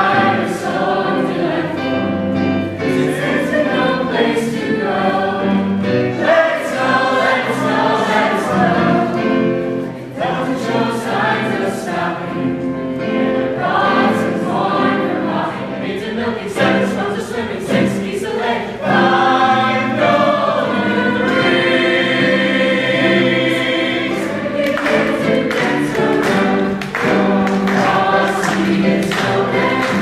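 A choir of young men's and women's voices singing a Christmas carol together, accompanied on an electric keyboard.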